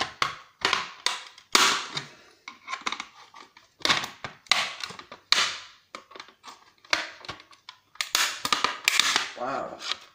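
A screwdriver prying and scraping at a set-top box's plastic casing, trying to free its latches: an irregular run of sharp clicks, cracks and scrapes of hard plastic.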